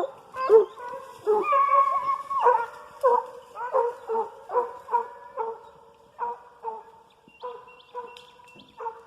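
Hunting hound baying: a long drawn-out bawl, then a string of short barks about one or two a second that grow fainter toward the end.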